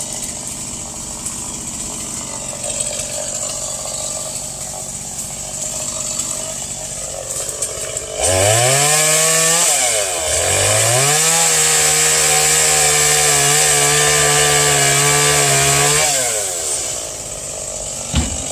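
Chainsaw idling, then throttled up sharply about eight seconds in. Its pitch dips briefly and climbs back, holds at high revs for about six seconds, then drops back toward idle near the end.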